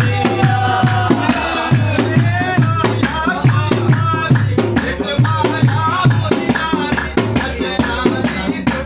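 A Punjabi mahiya folk song: a singing voice over a steady drum beat, with hands clapping along in time.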